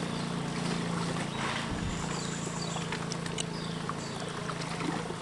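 Water rushing and lapping around a bamboo raft on a fast river, with scattered light knocks and a steady low hum underneath. A few short falling whistles sound about two to three seconds in.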